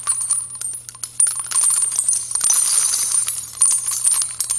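Sound effect of coins jingling and clinking: a dense shimmer of many small metallic clinks over a low steady hum.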